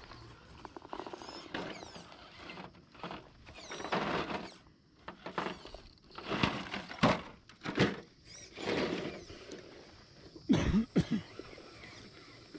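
Element RC Enduro Trailwalker crawler truck working over rock, gravel and dry leaf litter: irregular crunching and scraping of its tyres and chassis in short bursts. The loudest is a sharp knock with a brief squeal about ten and a half seconds in.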